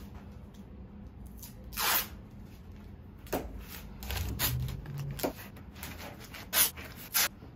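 Masking tape being pulled off the roll in short rips, about six times, the longest and loudest about two seconds in.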